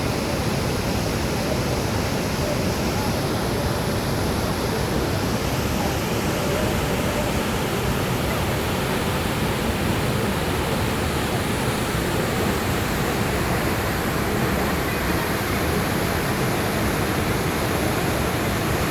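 Steady rush of water from the large Athirappilly waterfall, an even noise without pauses.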